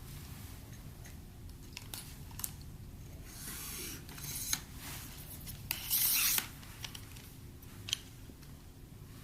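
Handling noises: several light clicks and two brief rustling scrapes, the louder one about six seconds in.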